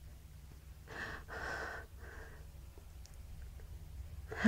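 A woman's noisy breathing and sniffing in the middle of a sneezing fit: two rough breaths about a second in, then a sudden short loud burst of breath through the nose and mouth at the very end.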